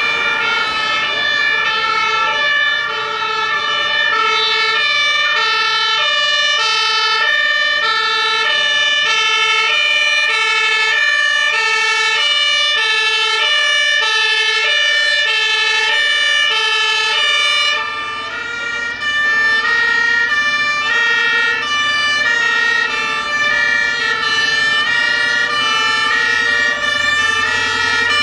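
German fire engine two-tone siren (Martinshorn) sounding continuously, its two pitches alternating about every 0.7 seconds. About two-thirds of the way through the sound turns duller.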